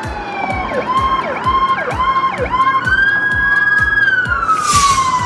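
Police car siren: a slow wail that falls in pitch, then several quick down-and-up sweeps about twice a second, then climbs and holds before falling away again. A steady thumping beat runs underneath.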